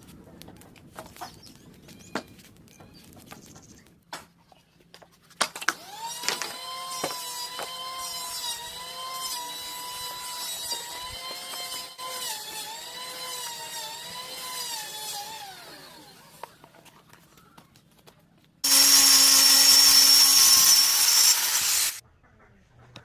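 Electric power tools running in two spells: a quieter whine with a wavering pitch for about ten seconds, then a much louder run of about three seconds near the end. A few scattered knocks come before them.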